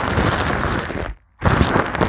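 Brush sweeping over a foam microphone cover right at the mic, a dense, loud scratchy rustle with low thumps; it cuts out for a moment about a second in, then starts again.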